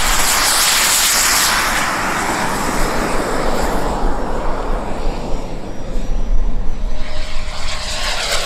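Radio-controlled model jet's turbine engine at full power on its takeoff run: a loud rushing jet noise, strongest in the first couple of seconds, then fading as the jet climbs away and leaving a faint high whine.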